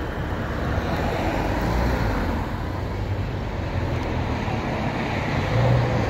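Street traffic: a steady rumble of passing cars and road noise.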